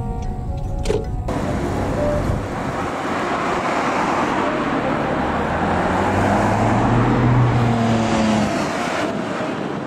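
Road traffic: cars passing on the street with a steady rush of tyre and engine noise, one engine's hum swelling and then fading about two-thirds of the way in.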